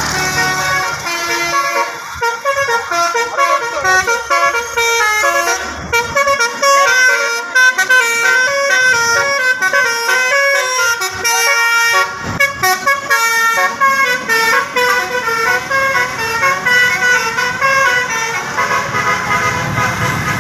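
A truck's basuri horn, a multi-tone electric 'telolet' horn, playing a fast tune of stepped notes.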